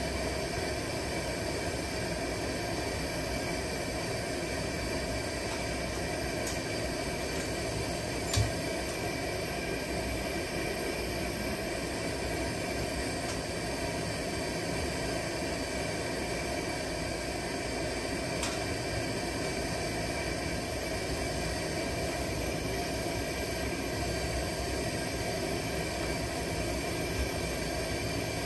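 Burner of a vintage 1940s Preway P4521 camp stove running under a pot of water, giving a steady hiss. A single sharp tick about eight seconds in and a few fainter ticks later.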